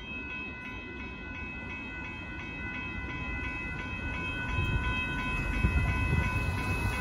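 Railroad grade-crossing bell ringing in quick, even strokes while the gates lift after the train has cleared. About halfway through, a low rumble rises as cars drive over the crossing.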